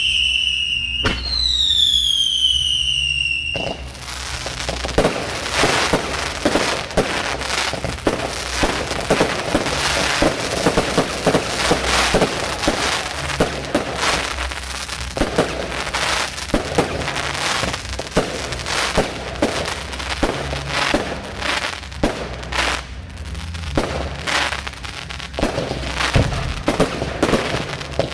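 Fireworks display: two whistling shells with falling whistles in the first few seconds, then a dense barrage of sharp cracking bangs and crackle.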